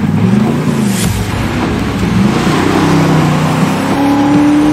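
BMW 5 Series G30 exhaust note produced by an ENGINEVOX electronic active-sound exhaust system, revving up and down, then settling into a steady note about four seconds in.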